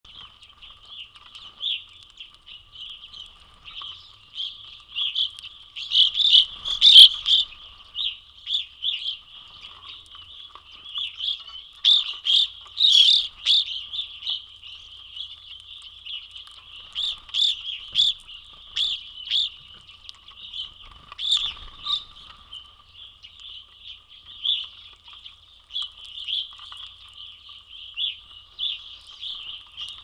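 A flock of evening grosbeaks calling: a continual chatter of short, clear chirps, busiest about six and twelve seconds in.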